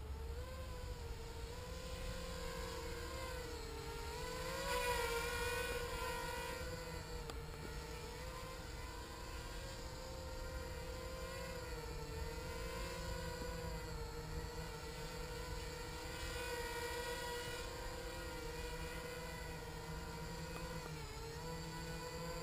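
HK 250 quadcopter's four electric motors and propellers whining in a low hover, the pitch wavering up and down as the throttle is worked. About five seconds in the whine surges louder and higher for a moment before settling back.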